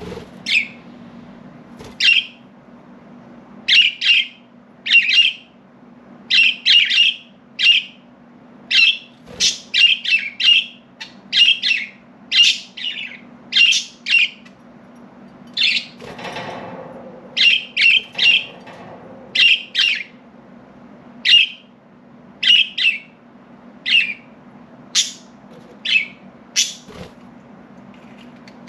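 Pet budgerigars giving short, sharp chirps and squawks, one or two a second, over a low steady hum.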